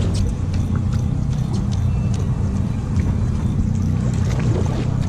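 Boat engine idling with a steady low hum, with scattered faint clicks.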